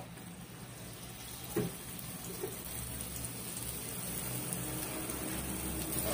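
Cooking oil heating in a stainless steel wok, a faint steady sizzle that grows slowly louder. There is a light tap about a second and a half in, and a wooden spatula begins moving in the pan near the end.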